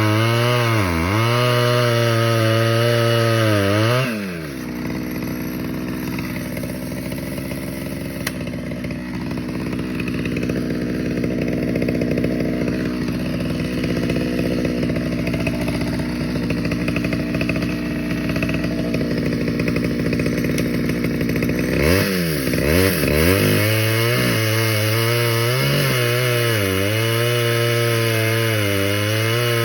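Stihl 011 two-stroke chainsaw cutting logs, its pitch sagging and recovering under load. About four seconds in the throttle is released and it idles for a long stretch, then it revs up sharply near the end and cuts again.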